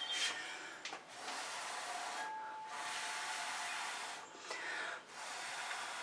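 A plastic swipe card dragged across wet fluid acrylic paint on a stretched canvas: soft hissing scrapes in four long strokes, each a second or more, with short pauses between.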